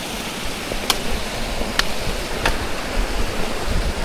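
Steady rush of a small mountain stream flowing out of the lake, with three sharp clicks about a second apart.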